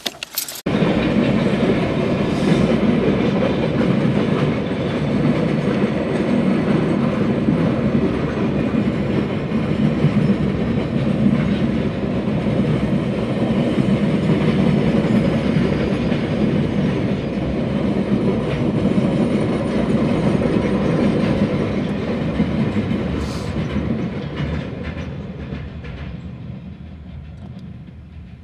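Freight train wagons rolling past on the rails with a steady, heavy running noise, which fades away over the last few seconds as the end of the train goes by.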